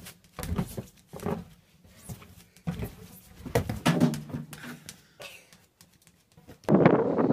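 Irregular thuds of a person bouncing on an inflatable exercise ball on a padded gym mat and tumbling off it. A louder, noisier sound cuts in near the end.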